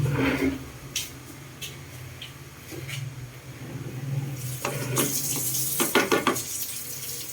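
A metal utensil clinking and scraping against a pan as chili garlic oil is stirred, with hot oil sizzling. The clinks are sparse at first, then come thicker with more sizzle about four to six seconds in.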